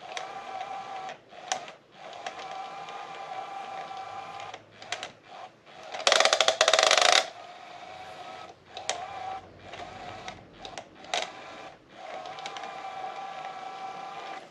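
Small battery-powered motor and gears of a SmartyKat Hot Pursuit cat toy whirring with a steady hum, cutting out and restarting several times. About six seconds in, a loud rattling clatter lasts about a second.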